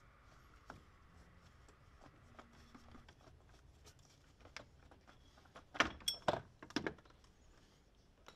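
Faint handling noises from gloved hands working among hoses and metal parts in a car's engine bay: scattered light clicks, then a quick cluster of sharp clicks and clinks about six seconds in.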